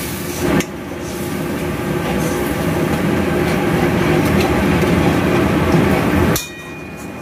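Water pouring into a pan of hot oil and fried spice paste, then a loud, steady bubbling and sizzling rumble that grows a little louder and cuts off suddenly near the end.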